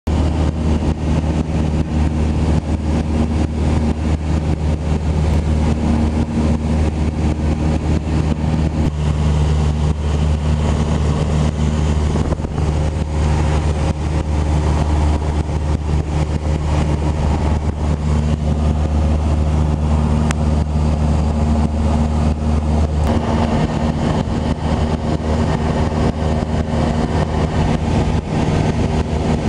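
Cessna 172 Skyhawk's piston engine and propeller droning steadily in cruise, heard inside the cabin. The low drone shifts slightly about 23 seconds in.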